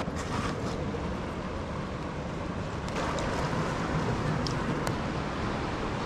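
Steady rushing of a fast-flowing river, with a few faint clicks partway through.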